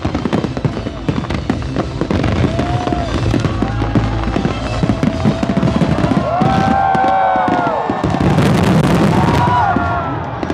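New Year fireworks popping and crackling in a dense, continuous barrage. From a couple of seconds in, drawn-out high tones rise and fall over the cracking.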